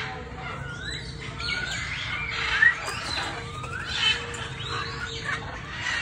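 Many aviary birds calling over one another: a steady chatter of short, rising whistled chirps, with one louder call about two and a half seconds in.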